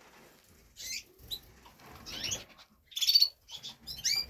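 Small cage birds in a bird room chirping: a handful of short, high calls with quick pitch slides, the loudest cluster about three seconds in.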